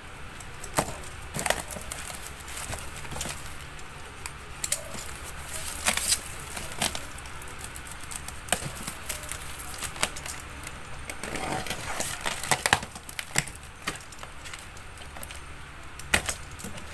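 Cardboard boxes being handled and shifted: irregular knocks, taps and rustles of cardboard, with a longer scraping rustle about two-thirds of the way through.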